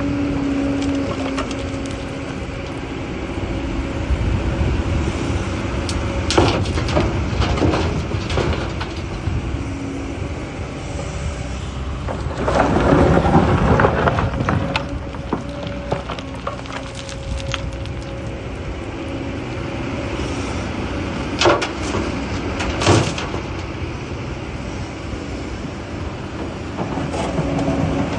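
Excavator at work: its diesel engine running with a steady hum, several sharp clanks scattered through, and a louder surge of rumbling noise about halfway.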